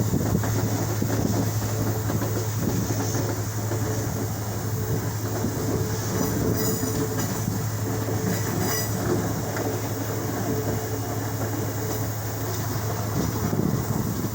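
A moving vehicle's steady low rumble with wind noise. Between about six and nine seconds in, faint high-pitched squealing is briefly added.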